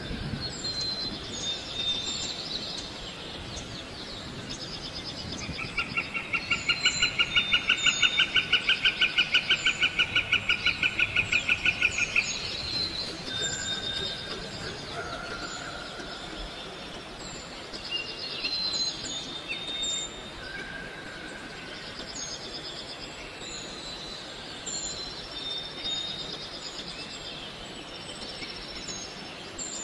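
Forest birds calling, with short high chirps repeating and brief whistled notes. A loud, fast pulsing trill, about seven pulses a second, runs from about six to twelve seconds in.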